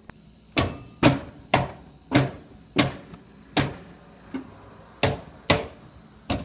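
A run of about ten sharp knocks or taps, one roughly every half second to second.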